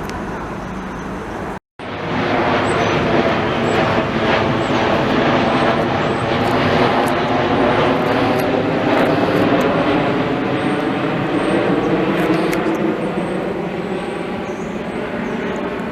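Jet airliner flying low overhead, its engine noise loud and steady with slowly sweeping tones as it passes. The sound cuts out completely for a split second about two seconds in.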